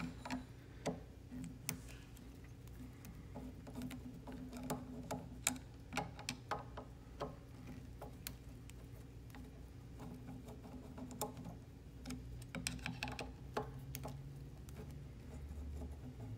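Phillips screwdriver unscrewing the four small cap screws on a metal fuel nozzle: light, irregular metal clicks and ticks as the bit seats in and turns the screw heads.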